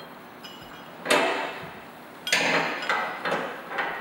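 Steel parts clanking: a steel skid-shoe bracket and its bolts knocking against the steel snow plow blade as they are handled, two loud ringing clanks about a second and two seconds in, then a couple of lighter knocks.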